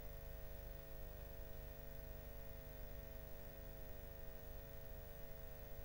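Faint steady electrical hum and hiss with a few constant tones, unchanging throughout: dead air on a blank broadcast feed, with no speech or music.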